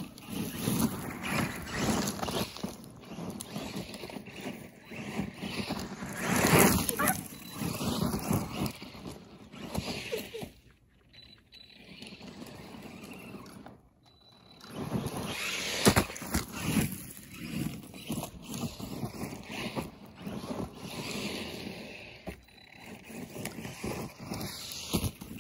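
Arrma Senton 3S 4x4 BLX RC short course truck racing on a dirt track: its brushless motor whines up and down in pitch as it accelerates and slows, with tyres scrabbling and spraying dirt. The sound drops almost away twice, around eleven and fourteen seconds in, then picks up again.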